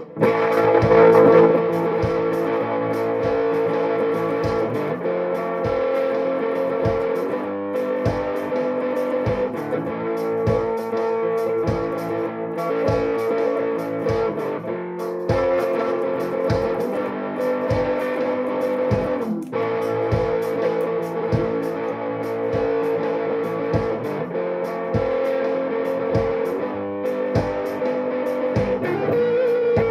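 Electric guitar played as a slow lead line of long held, sustained notes, with a wavering vibrato on a held note near the end. A steady low beat thumps underneath, about every three quarters of a second.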